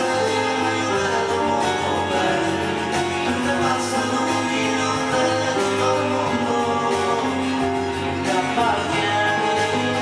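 Live keyboard music played on a Roland E-86 arranger keyboard and a second keyboard: a full band-style backing arrangement with a melody of long held notes over it.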